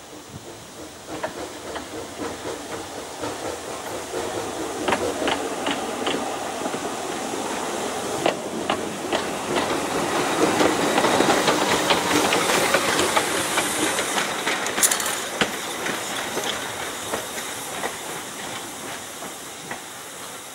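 Narrow-gauge steam locomotive approaching slowly with a goods train: steam hissing, with scattered clicks and knocks from the wheels and running gear. It grows louder towards the middle and eases off a little near the end.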